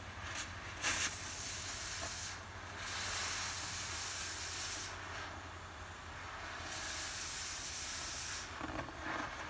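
Oxy-fuel cutting torch hissing as it cuts through the steel wall of a 1000-gallon tank, the hiss swelling and easing in stretches of a second or two, with a sharp pop about a second in, over a steady low hum.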